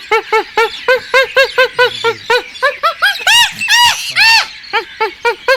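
A bird calling: a quick run of short rising-and-falling notes, about four or five a second, with three longer, louder notes in the middle.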